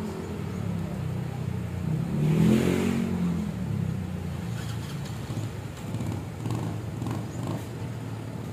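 A motor vehicle engine runs steadily. About two seconds in it swells louder, rising and then falling in pitch over about a second, as if revving or accelerating.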